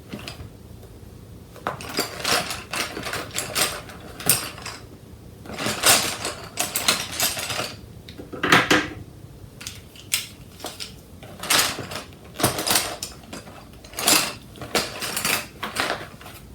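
Irregular bursts of rustling and clattering from things being handled, with short pauses between them.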